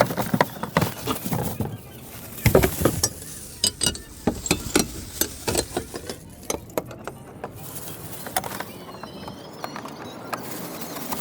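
Irregular hard plastic clicks and knocks as the fog light housing is worked loose from the bumper, busiest in the first seven seconds or so, then fainter.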